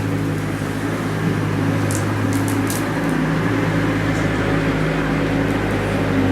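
Bobcat skid-steer loader's engine running steadily with a low drone, with a few light clicks about two to three seconds in.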